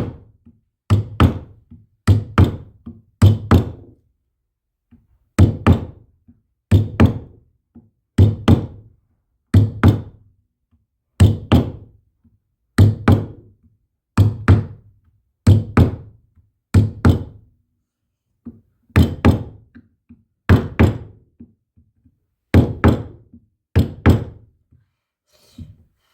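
Heavy knocks struck one at a time in a steady working rhythm, roughly one every second and a quarter, each dying away quickly. The strikes break off briefly twice, about four seconds in and again near eighteen seconds.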